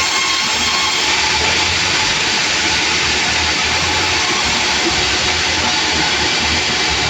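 Sawmill running: a steady, loud hiss with a low throbbing hum underneath.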